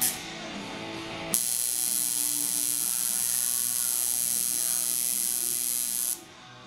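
Coil tattoo machine buzzing steadily as it drives the needle into skin, starting abruptly about a second in and cutting off shortly before the end, over background music. A brief sharp noise comes right at the start.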